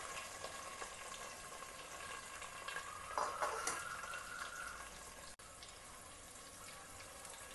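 Sliced onions frying in hot oil in a pan: a steady sizzling hiss, with a few light knocks about three seconds in.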